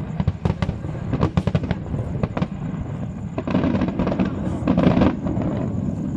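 Aerial fireworks bursting over water: a fast run of sharp bangs and crackles over the first three seconds, then a louder, denser spell lasting about two seconds.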